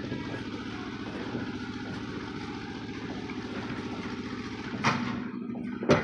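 An engine running steadily, then two sharp knocks near the end.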